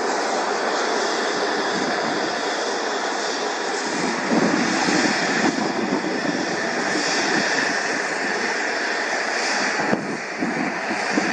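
Aircraft engine noise: a steady, even rush with no clear tone, swelling slightly about four seconds in, with a single sharp click near the end.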